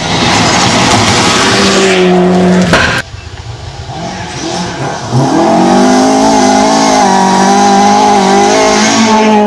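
Rally cars at full throttle on gravel. First a Mitsubishi Lancer Evolution's engine runs hard over a hiss of loose stones, cut off abruptly about three seconds in. After a quieter stretch, a Mk2 Ford Escort's engine rises sharply about five seconds in and holds at high revs.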